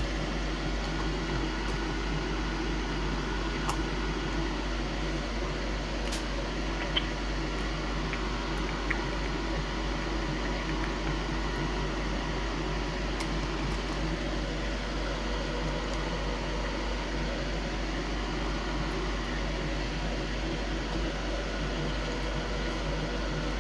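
Steady fan-like whir over a constant low hum, broken by a few short faint clicks about 4, 6, 7 and 9 seconds in.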